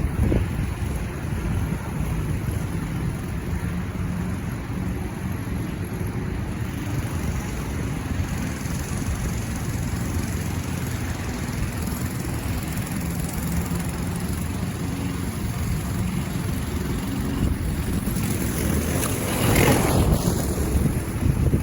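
Honda HRX217 walk-behind lawn mower's single-cylinder 160 engine running steadily under a mowing load. It gets louder briefly near the end.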